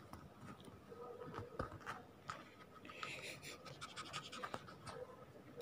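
Faint scratching and rustling of a puppy's paws scrabbling on a bedsheet as it plays, with many short scratchy clicks.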